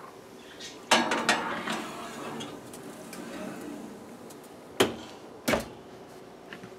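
A glass baking dish is set down on a metal oven rack with a clatter and a short rattle about a second in. Near the end come two sharp knocks as the oven is closed up.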